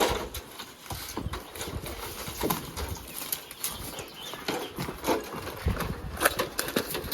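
Irregular light clicks and knocks on the metal roof in gusty wind, with a few louder knocks about two and a half, five and six seconds in.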